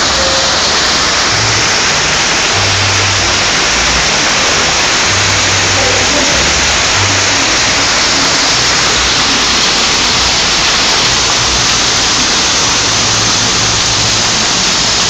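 Heavy rain and hail pelting the street and vehicles: a loud, steady hiss, with slushy hail-laden water rushing along the gutter.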